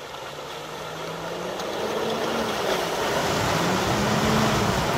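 Off-road 4x4 engine revving in surges, its pitch rising and falling every couple of seconds and growing louder.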